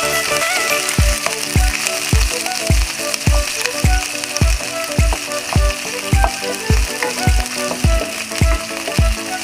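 Chopped onion sizzling in hot oil in a nonstick wok, stirred with a wooden spoon. Under it runs a steady low beat of background music.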